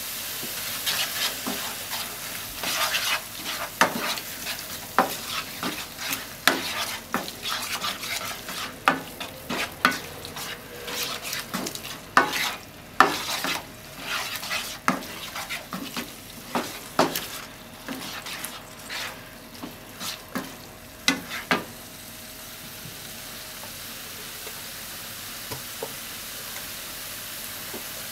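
Spatula scraping and turning ham, tofu and scrambled egg in a sizzling non-stick frying pan: many quick strokes against the pan for about twenty seconds, then the stirring stops and only the steady sizzle of frying goes on.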